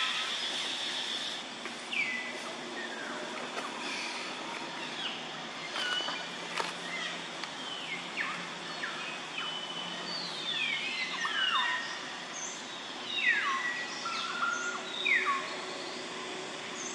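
Birds calling: repeated sharp chirps that fall steeply in pitch, some in quick clusters later on, over a steady outdoor hiss.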